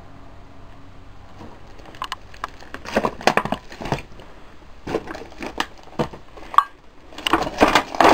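Footsteps crunching and crackling over debris on the floor. Irregular clusters of cracks and crunches start about two seconds in and are thickest near the end.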